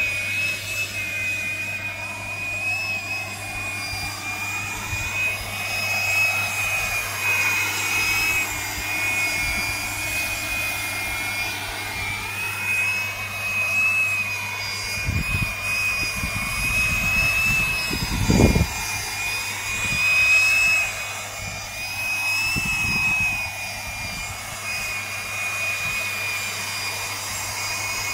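Coaxial model multicopter flying, its motors and contra-rotating propellers giving a steady, high whine that wavers slightly in pitch. A low thump comes about two-thirds of the way through.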